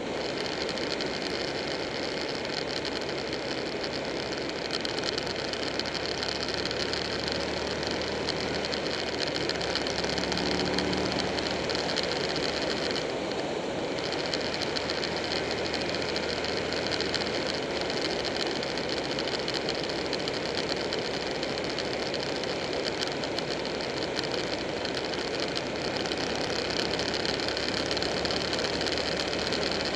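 Buell 1125R's V-twin engine running steadily at cruising speed, mixed with a continuous rush of wind and road noise over the microphone.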